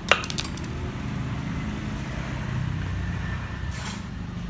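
A single sharp snip just after the start as a chewed wire is cut, over a steady low rumble.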